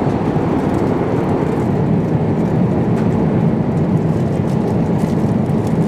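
Steady roar of a jet airliner's cabin in cruise: an even, unbroken rush of engine and airflow noise, heavy in the low and middle range.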